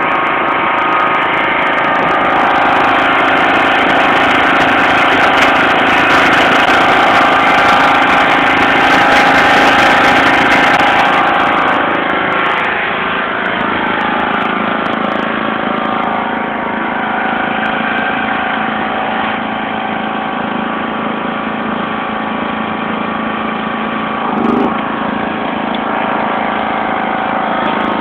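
1991 John Deere LX176 lawn tractor's engine running steadily, a little louder for the first twelve seconds or so and then settling slightly lower.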